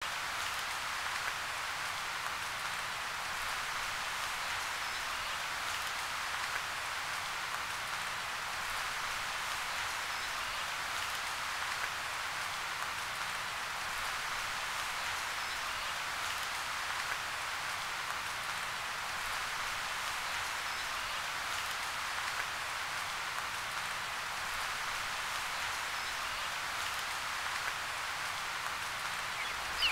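Steady, even outdoor hiss with no distinct events, a few faint short high chirps about every five seconds.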